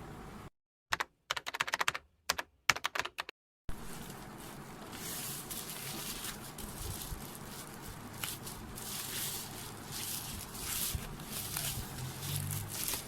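Typing on a computer keyboard: a quick run of sharp key clicks about a second in, then fainter clicking over a steady background hiss.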